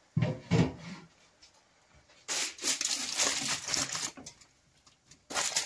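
Aluminium foil crinkling and rustling for about two seconds as it is pressed down around the rim of a pot, sealing it for dum steaming, then starting again near the end.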